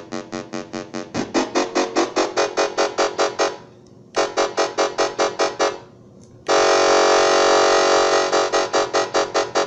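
SN76477 complex sound chip's VCO in repetition mode: a fast train of short electronic beeps, about six a second, with a short decay. The tone changes about a second in, the beeps stop briefly twice, and about six and a half seconds in the sound becomes one steady held tone for about a second and a half before the beeps resume.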